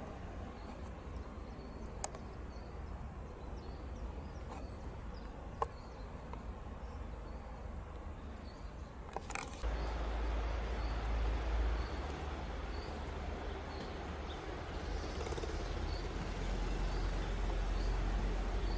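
Outdoor ambience: a small bird chirping faintly again and again over a steady low rumble. A brief crackle comes about nine seconds in, after which the rumble grows louder.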